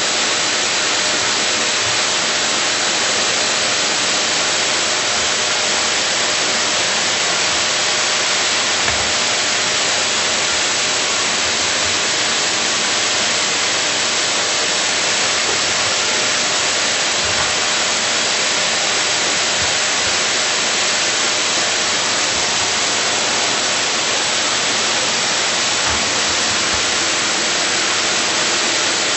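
Vacuum cleaner running steadily: a loud, even rushing noise with a faint steady tone in it.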